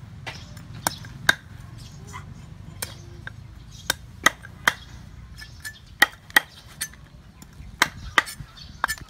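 Meat cleaver chopping through raw chicken feet and legs on a round wooden chopping board: about a dozen sharp, irregular knocks, several coming in quick pairs.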